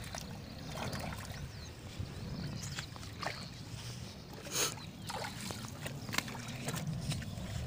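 Shallow canal water sloshing and splashing as a hand gropes for fish inside a bamboo polo plunge-basket trap, with scattered small splashes and one sharper splash about four and a half seconds in, over a low steady rumble.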